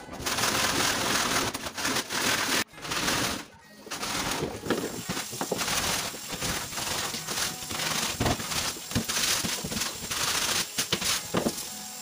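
Tap water running into a stainless steel sink while an air-conditioner's plastic mesh filter is scrubbed with a stiff brush: rapid, irregular scratchy strokes, with a brief lull a few seconds in.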